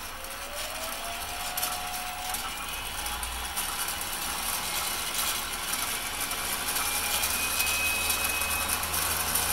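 MX-210V 8x16 benchtop metal lathe running with its spindle and gear train being sped up, from about 340 to about 1,000 rpm. The drive's whine rises in pitch and grows steadily louder.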